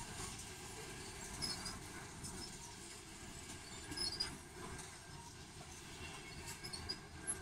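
Freight train's covered hopper cars rolling past on the rails: a steady rumble of steel wheels on track, with occasional clicks as wheels pass over rail joints.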